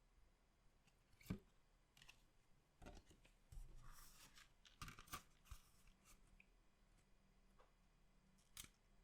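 Quiet handling of collectible card packs and packaging: soft crinkling and rustling, with a sharp click about a second in and another near the end.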